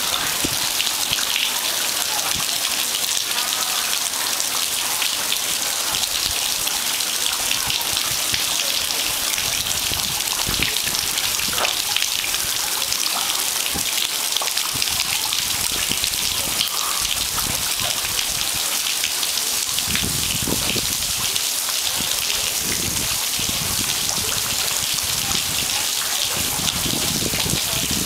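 Fountain water sheeting down a cone-shaped spout and falling into a stone basin: a steady hiss of splashing water.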